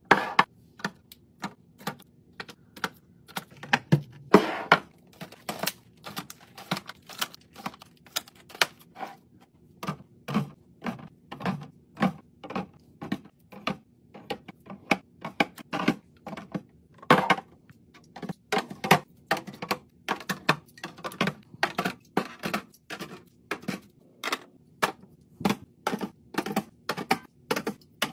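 Quick clicks, taps and knocks, several a second with a few louder ones, from food containers and packaging being handled and set down while a fridge is restocked.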